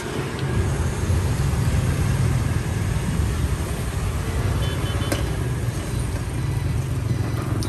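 Hot oil sizzling steadily as sesame-coated dough cakes deep-fry in a steel wok and are turned with chopsticks, over a steady low rumble. A single sharp click about five seconds in.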